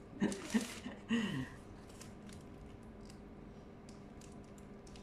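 A few quick spoken sounds, then faint scattered crinkles and ticks from hands handling thin pastry sheets in a plastic wrapper.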